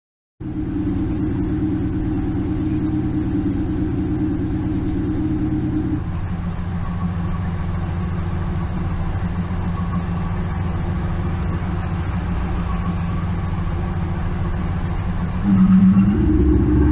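Simulated engine idle played through a MAXHAUST active exhaust-sound speaker system. It cuts in abruptly as a steady low idle, switches to a different idle note about six seconds in, and gets louder near the end as it starts to rise into a rev.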